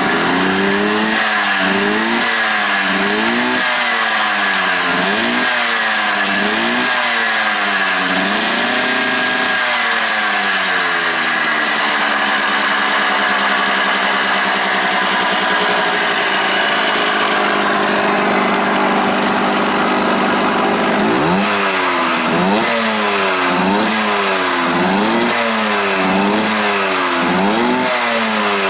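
Honda CRM80's two-stroke single-cylinder engine through an aftermarket RSV silencer, blipped with the throttle over and over, about once a second. About ten seconds in it drops back to a steady idle, and the repeated revving starts again about 21 seconds in.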